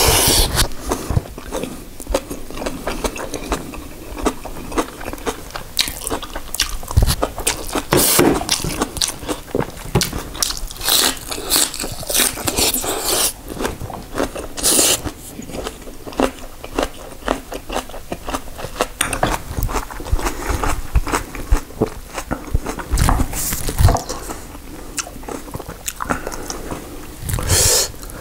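A person chewing kimchi and rice: wet crunching and biting with many small clicks, and a few louder bites along the way.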